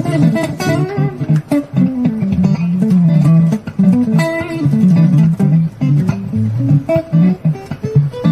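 A guitar played solo as an improvisation: a steady flow of plucked notes, with a melody line over bass notes.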